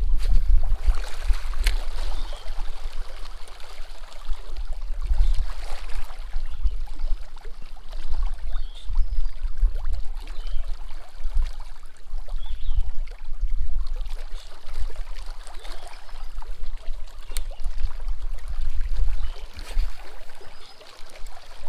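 Small waves lapping and splashing against a rocky shoreline, with wind buffeting the microphone as an uneven low rumble.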